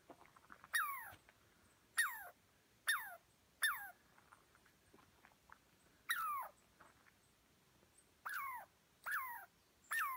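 Squirrel in a tree giving a series of about eight short alarm calls, each a sharp onset followed by a whining tone that falls steeply in pitch, repeated every second or two. The calls signal the squirrel is agitated by the people and dog below it.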